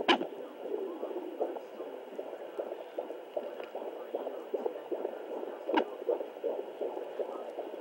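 Fetal heartbeat heard through a handheld fetal Doppler: rapid whooshing pulses over a steady hiss. Two sharp knocks break through, one at the start and one nearly six seconds in, which are the baby's hiccups.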